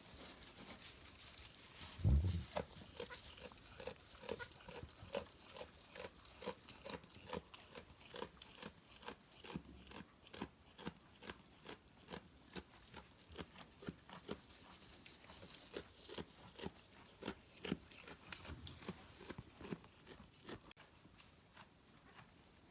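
A goat making steady, rhythmic mouth sounds, about two short clicks a second, after a single thump about two seconds in.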